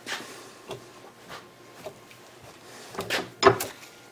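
Hollow gasket punch worked in a hand arbor press and lifted off foam rubber: a few soft knocks and rubs, then two louder clunks a little after three seconds in.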